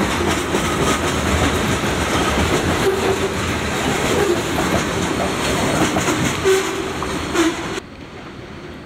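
Freight cars rolling past close by: a steady rumble with rapid clicking and clatter of steel wheels over the rail joints. Near the end it drops suddenly to a quieter, more distant rumble of the train going away.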